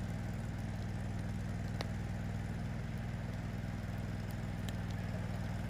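Welder-generator engine running steadily: a low, even hum. A couple of faint sharp ticks sound over it, about two seconds in and near the end.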